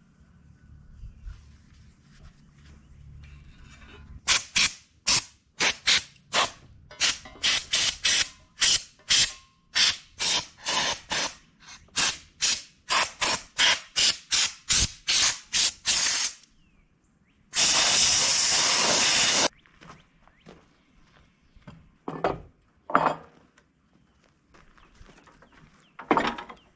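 Short hissing bursts of pressurised spray, about two a second for some twelve seconds, then one steady spray lasting about two seconds and a few short puffs near the end.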